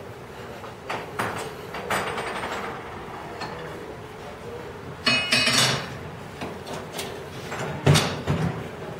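Scattered knocks and clunks from people moving about and handling things at a lab bench, over a faint steady hum. A louder burst of noise comes about five seconds in, and heavier thumps come near the end.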